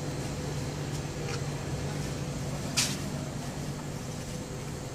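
Steady low hum of vending-machine cooling units mixed with street traffic noise, with one brief sharp noise about three seconds in and a fainter one just over a second in.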